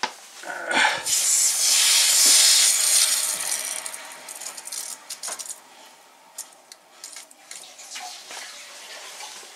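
Hose-bib drain valve on a well pressure tank line being opened. About a second in, the pressurised water rushes into the garden hose with a loud hiss that eases off after a couple of seconds as the system pressure drops, followed by a few small clicks and knocks from the valve.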